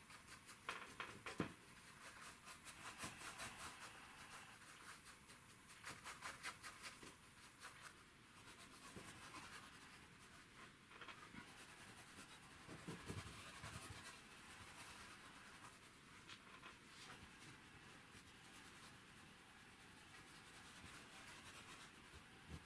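Faint, irregular scratching of a paintbrush dabbed and stroked back and forth on stretched canvas, laying on acrylic paint.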